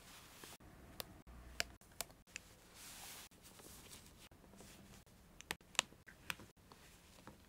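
Faint handling sounds of a ball-jointed doll and its clothes: a scatter of small, sharp clicks with a brief soft rustle of fabric.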